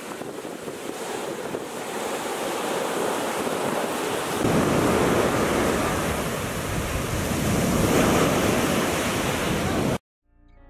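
Sea surf washing up a beach, with wind noise on the microphone. It fades in, grows louder about halfway through, and cuts off suddenly near the end, where soft music begins.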